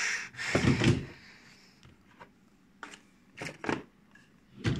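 Handling noise of objects on a desk: a brief rustle, then a cluster of knocks about half a second in, followed by a few scattered clicks and two more short bursts of knocks later on.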